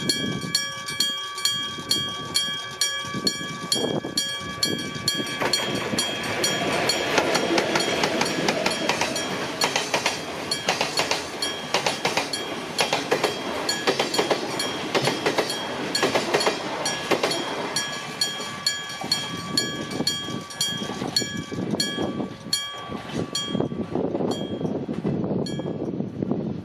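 Iron gong-type electric level-crossing bell striking at a steady, even pace, each stroke ringing on. From about five seconds in to about eighteen seconds, a freight train passes: two ED45 electric locomotives and Hoki 1000 hopper wagons, their wheels running over the rails and nearly drowning the bell. Once the train has gone, the bell is heard plainly again.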